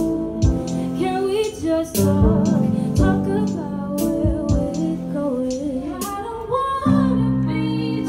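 A woman singing an R&B song into a microphone over a live band with a steady beat, heard through the stage PA. About seven seconds in, the music switches to another song with long sustained chords.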